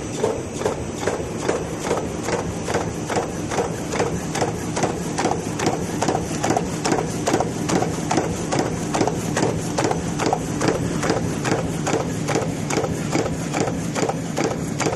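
Paper cup forming machine running, a fast, even clacking rhythm over a steady mechanical hum.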